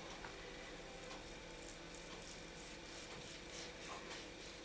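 A knife slicing through a rolled minced-meat, potato and carrot log: faint, soft, quick cutting scrapes.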